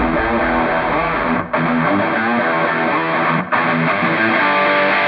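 Loud intro music led by strummed electric guitar, breaking off for a moment about every two seconds.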